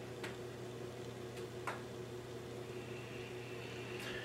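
Room tone: a steady low hum, with three faint short clicks, the first near the start, one about a second and a half in, and one near the end.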